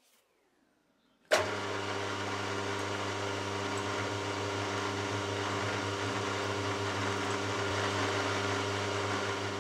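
Warco Super Major milling machine switched on about a second in with a sharp click, then running steadily with a low mechanical hum while a twist drill bores into a metal block clamped in the vise.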